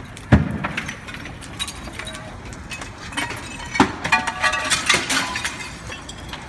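Building fire with sharp cracks and glass clinking and breaking: a loud crack about a third of a second in, then more cracks and clinks around four and five seconds in.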